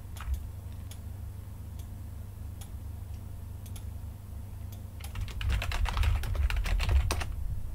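Typing on a computer keyboard: a few scattered clicks, then a quick run of keystrokes starting about five seconds in and stopping just after seven.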